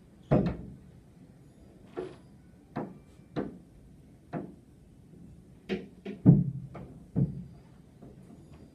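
Irregular knocks and thuds on a glass window pane, heard from inside, as rope-access window cleaners' boots and tools bump the outside of the glass: about ten knocks, the loudest a little after six seconds in.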